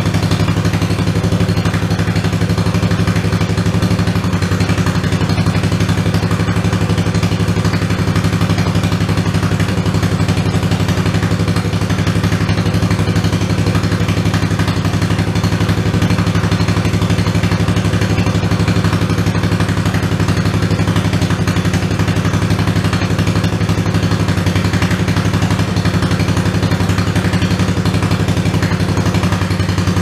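OMC Mustang 310 skid steer's replacement engine running steadily, with an even, fast firing pulse, below its full RPM because the throttle lever is not yet adjusted.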